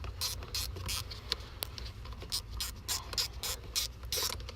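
Screwdriver working a small Phillips screw on an ignition switch: a quick, irregular run of scratchy clicks and scrapes.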